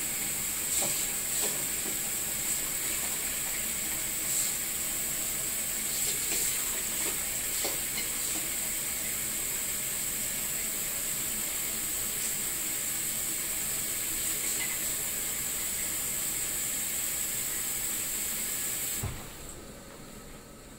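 Kitchen faucet running a steady stream of cold water into a stainless steel bowl of ice, filling it. The water cuts off suddenly near the end as the tap is shut.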